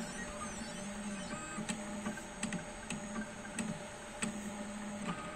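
Stepper motors of a CNC 3018 gantry whirring in short start-stop runs as they move a 15-watt diode laser head over a titanium plate during engraving. A steady hum sits underneath, with a few faint ticks.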